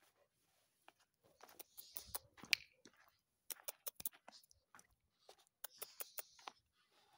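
Footsteps crunching on gritty, sandy ground, in three short bursts of sharp crackling clicks.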